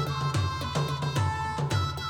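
Background music with a steady drum beat, about two to three strokes a second, under a held melody line.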